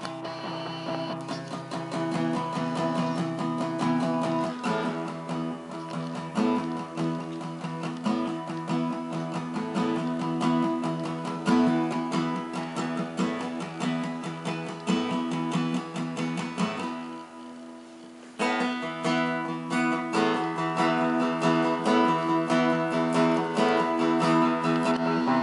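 Guitar music with plucked notes and strums, dropping away briefly about two-thirds of the way through and then picking up again suddenly.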